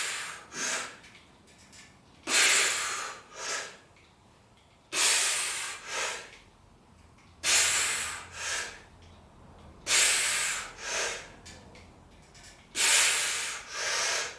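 A man breathing hard through repetitions of a cable row: six loud exhales about two and a half seconds apart, one per rep, each followed by a shorter, quieter breath.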